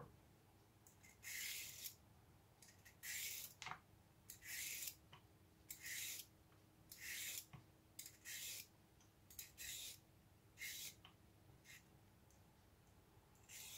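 Vegetable peeler scraping the skin off a raw carrot in short, repeated strokes, about one a second, each a brief soft rasp.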